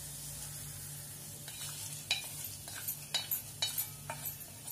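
Hot tempering of peanuts, curry leaves and mustard seeds in oil being scraped out of a kadhai onto beaten rice (poha), over a faint sizzle. From about a second and a half in, a spatula clicks and scrapes against the pan about a dozen times.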